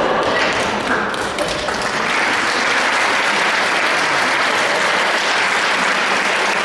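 Audience in a hall applauding steadily, with a few voices over the clapping in the first couple of seconds.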